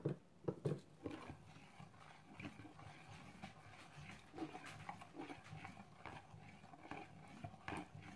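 Metal spoon stirring jello mix in a cup: faint, irregular clinks and taps against the sides, with a few louder knocks near the start and again near the end.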